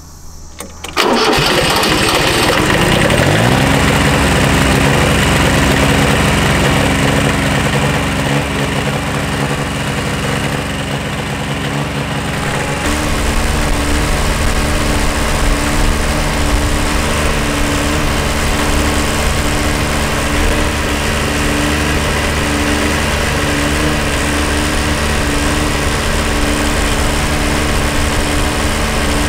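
Kubota B7100's small three-cylinder diesel engine catching about a second in, picking up speed over the next couple of seconds, then running steadily. The sound turns abruptly heavier about thirteen seconds in. The owner suspects a miss on the number one cylinder, with white smoke from unburnt fuel.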